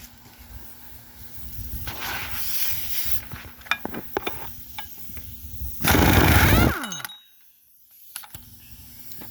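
Tools working the big axle nut off the brake-drum side of a Honda Rancher ATV's rear axle, with sharp metal clinks. About six seconds in there is a loud burst of about a second that falls in pitch as it stops, then cuts off suddenly.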